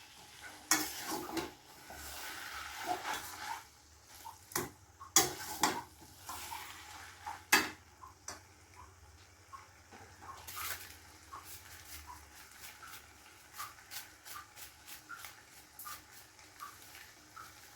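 A spatula stirring cabbage in a cooking pan: scraping and knocking against the pan, with a little sizzling. In the second half it settles into light, regular knocks about twice a second.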